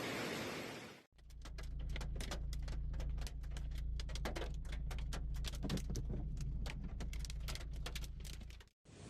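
Hailstones striking a vehicle: many sharp, irregular knocks, several a second, over a steady low rumble. It opens with about a second of steady rain hiss, which cuts off, and the hail clip cuts off near the end.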